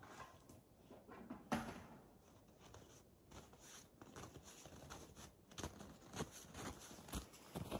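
Footsteps crunching in snow, faint and irregular at first and growing louder toward the end.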